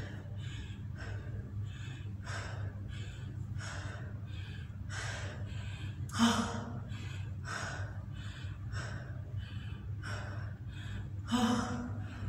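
A woman panting hard, about two breaths a second, out of breath after exercise, with a short voiced sigh about six seconds in and again near the end.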